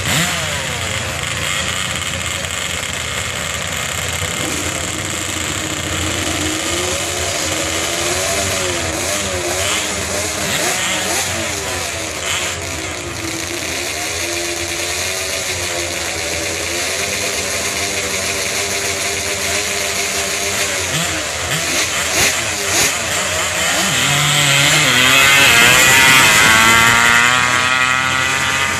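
Honda ATC three-wheeler engine revving up and down again and again at idle, then run hard at full throttle and rising in pitch near the end as the trike launches.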